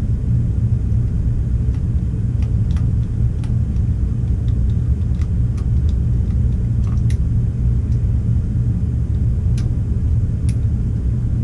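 Steady low rumble with a few faint, scattered light clicks.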